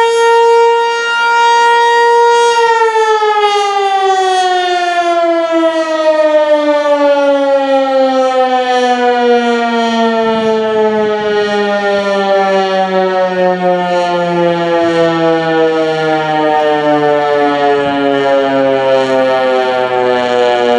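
American Signal T-121 electromechanical warning siren holding its steady top pitch for a couple of seconds, then winding down. The pitch falls slowly and smoothly for the rest of the time, as the rotor coasts once the motor is cut at the end of the signal.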